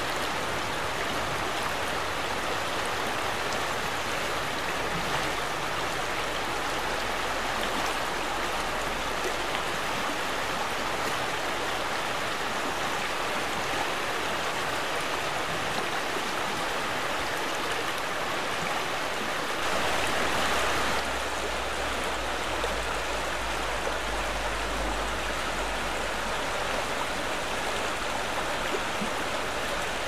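Shallow, fast river water rushing and splashing over stones in a steady, continuous wash. About two-thirds of the way through, the water noise briefly swells for a second or so, with a low rumble underneath that lasts a few seconds.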